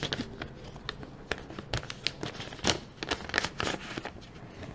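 Vellum envelope crinkling and rustling as it is handled and opened by hand: a run of small irregular crackles.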